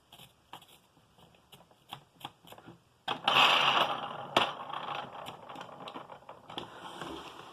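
Handling noise from a Hoover upright vacuum cleaner: scattered light clicks, then about three seconds in a rustling, scraping clatter with one sharp click, fading away near the end.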